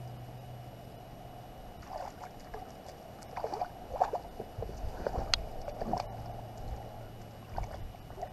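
A hooked bass splashing and thrashing at the water's surface beside the boat as it is brought in and landed, in irregular splashes starting about two seconds in, over a steady low hum.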